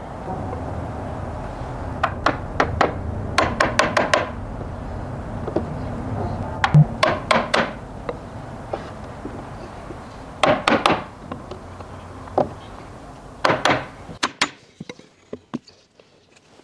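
Hammer striking an elm frame, driving its mortise-and-tenon joints home in quick bursts of three to five sharp knocks, with single blows between.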